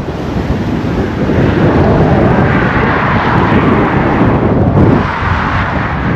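Strong wind buffeting the microphone: a loud, rushing roar with heavy rumble that swells for a few seconds in the middle.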